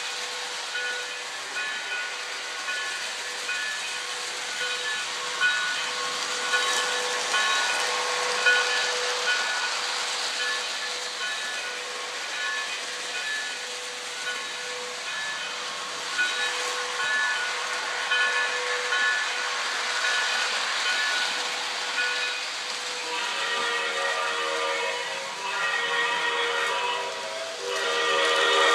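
Lionel Pennsylvania-line toy train running with its onboard sound effects: a steady steam hiss with a repeating ringing bell. In the last several seconds the multi-note whistle blows and grows louder.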